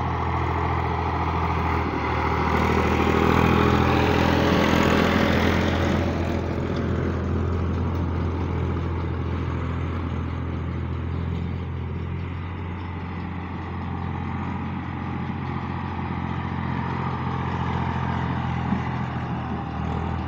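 Ursus 3512 tractor's three-cylinder diesel running steadily under load, pulling a Claas Rollant 44S round baler that is working hay. It is loudest a few seconds in, then settles to an even run.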